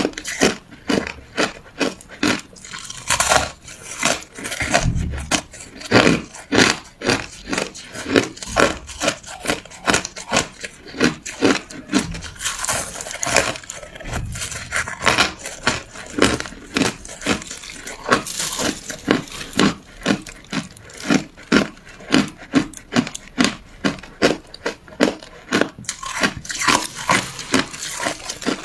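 Ice being bitten and chewed close to the microphone: a steady run of sharp crunches and cracks, about two to three a second.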